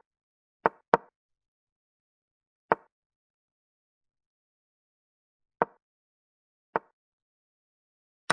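Chess pieces being set down on a board: short, sharp single knocks at uneven intervals, two close together about a second in, the rest spread out with silent gaps between.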